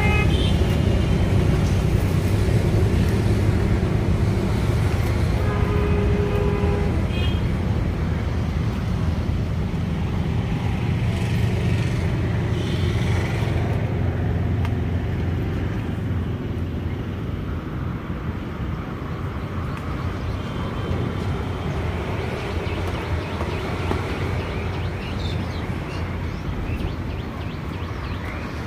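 Steady low rumble of outdoor background noise, easing off slightly towards the end.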